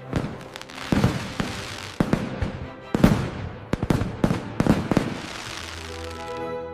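Cartoon fireworks going off: a run of sharp bangs, roughly one a second, each followed by crackling. About six seconds in, sustained music notes come in.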